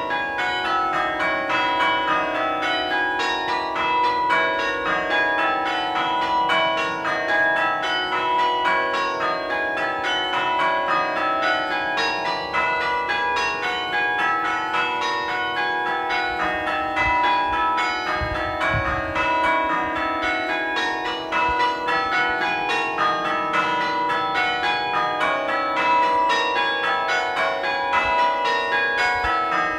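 Church bells ringing in the tower, one bell struck after another in a steady, unbroken run of strokes.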